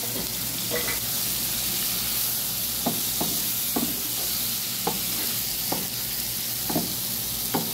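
Goat meat, peppers, tomato and laban sizzling steadily in a frying pan while a wooden spatula stirs, with short scrapes and knocks of the spatula on the pan about once a second from about three seconds in.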